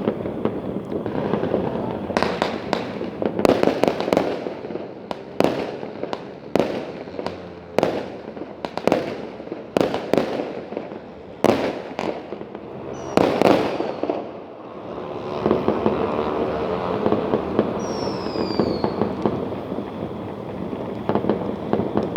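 Fireworks going off: a run of about a dozen sharp bangs, then a couple of falling whistles as the bangs thin out, over steady background noise.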